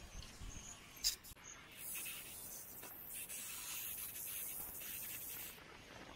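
A sharp click about a second in, then a steady, high-pitched insect buzz, like a cricket or cicada chorus in roadside vegetation, that runs for about four seconds and cuts off near the end.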